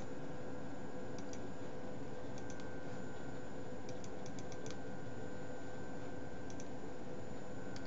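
Computer keyboard typing in a few short runs of keystrokes, with pauses between, over a steady electrical hum.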